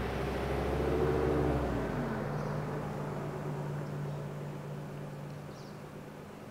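A motor vehicle driving past. Its engine hum is loudest about a second in, drops in pitch as it goes by, and then fades away.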